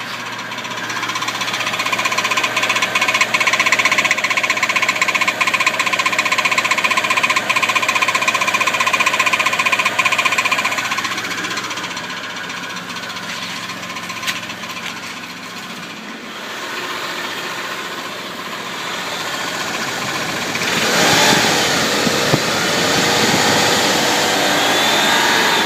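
Toyota 3.4-litre V6 idling with a ticking, heard from underneath near where the engine meets the transmission. About twenty seconds in, the engine sound gets louder and its pitch shifts. The owner says the tick goes away when the engine is revved above about 1700 RPM.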